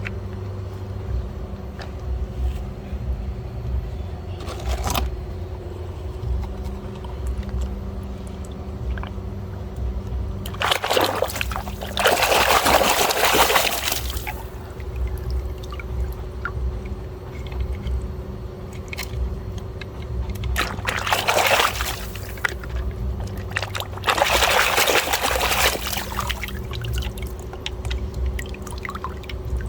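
Water pouring in three bursts: a long one of about three seconds near the middle, then two shorter ones towards the end. A steady low hum runs underneath.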